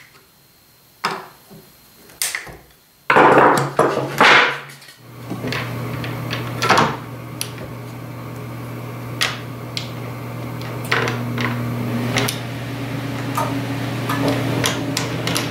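Wooden fixture parts and tools handled on a workbench: scattered knocks and clacks, with a louder scraping, rustling stretch about three seconds in. A steady low hum sets in about five seconds in and runs under the later knocks.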